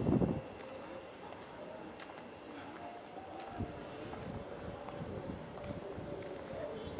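Crickets and other night insects trilling steadily at a high pitch, swelling and fading slightly, with a brief low rumble at the very start and a few faint ticks.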